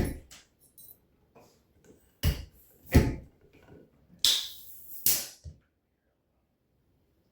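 Several separate sharp knocks and clatters from handling gear, one about four seconds in carrying a short high hiss; the sound stops a little after five seconds.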